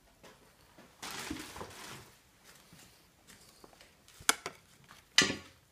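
Handling noise close to the microphone: a brief rustle, then two sharp knocks about a second apart, the second louder.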